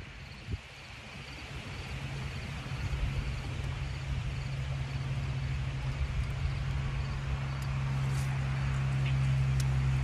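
Electric trolling motor running with a steady low hum that comes in about a second in and grows louder. A couple of faint ticks near the end.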